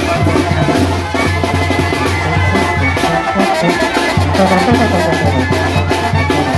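Music with a steady beat of drums and bass.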